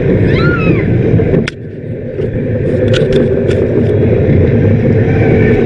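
Roller coaster running along its track: a steady, loud rumble of the train with wind buffeting the microphone. A brief rising-and-falling voice is heard at the start, and there is a sharp click about a second and a half in.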